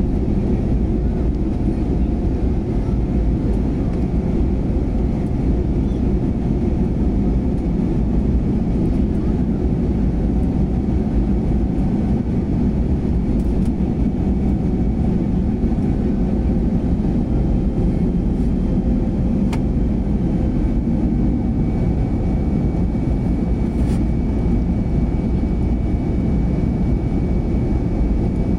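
Cabin noise of a jet airliner in its climb after take-off, heard at a window seat over the wing: a steady, deep rumble of the underwing turbofan engine and airflow, with a few faint steady hums above it.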